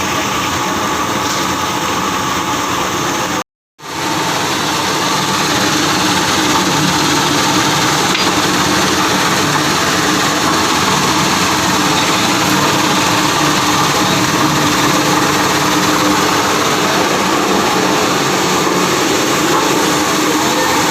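Plastic scrap washing machine running steadily. The sound drops out completely for a fraction of a second about three and a half seconds in, then comes back slightly louder.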